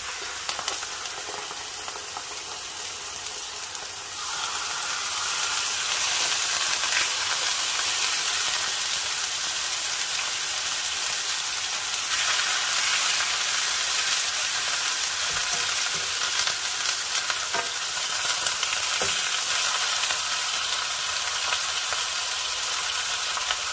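Thin slices of wet, beer-marinated beef sizzling in a hot oiled nonstick frying pan as they are laid in. The sizzle grows louder about four seconds in as more meat goes in, then holds steady, with a few light ticks of a fork against the pan.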